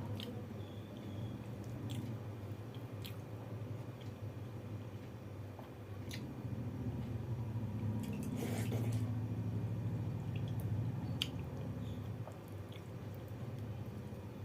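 Eating water rice (panta bhat) by hand: wet squelches and small clicks of the soaked rice and chewing, busiest about eight to nine seconds in, over a steady low hum.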